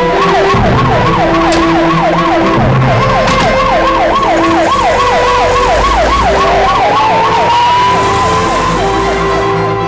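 Police car sirens: a fast yelp rising and falling about three times a second, joined about seven seconds in by a second siren's slower wail that rises and then holds.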